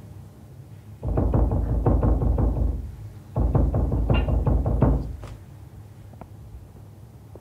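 Rapid, heavy pounding on a door, in two bursts of about two seconds each with a short pause between.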